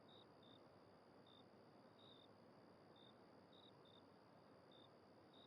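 Near silence: faint background hiss with short, faint high chirps scattered every second or so.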